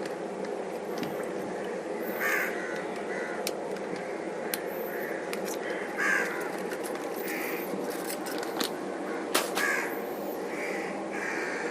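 Short bird calls, about seven of them, repeat over a steady low background hum, with a few sharp clicks.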